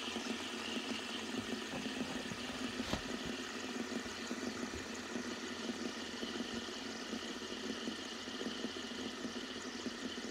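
Fidget spinners spinning on their bearings, a steady whirring hiss, with a single click about three seconds in.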